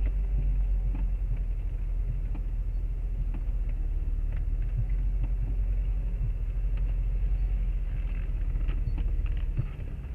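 Jeep driving slowly along a rough dirt off-road trail: a steady low engine rumble with scattered knocks and rattles as the body bounces over the ground, dropping off a little near the end.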